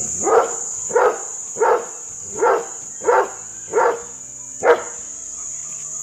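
Doberman Pinscher barking aggressively in guard mode, seven sharp barks about two-thirds of a second apart, the last one the loudest.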